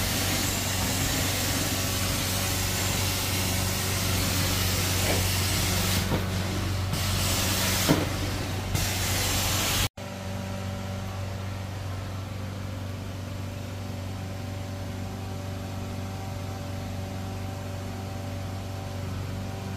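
An engine running steadily under a loud hiss, with a short knock shortly before a sudden cut about halfway through. After the cut the engine hum carries on, quieter and with little hiss.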